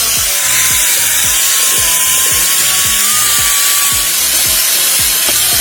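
Background music in an instrumental passage: a bass drum beats a little over twice a second under a dense, harsh wash of sound.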